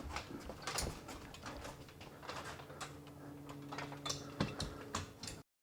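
Scattered light clicks and taps of parts being handled during assembly, over a faint steady hum; the sound cuts off abruptly near the end.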